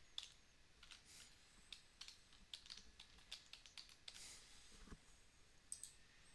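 Faint computer keyboard typing, irregular keystrokes as a short name is typed, with a quick pair of mouse clicks near the end.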